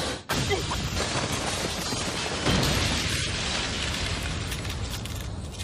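Dramatized magic-blast sound effect: a dense rushing roar that swells sharply about two and a half seconds in, then rumbles on and eases slightly.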